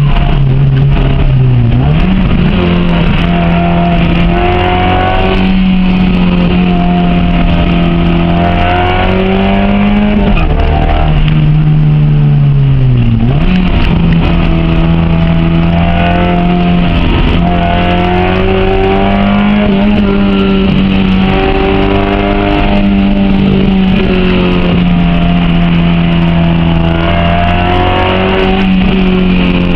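Honda H22A 2.2-litre four-cylinder in a Civic coupe running hard at high revs, its pitch holding fairly steady with small wavers. The revs dip and climb back briefly near the start and drop further about 13 seconds in before rising again, as the throttle is lifted and reapplied.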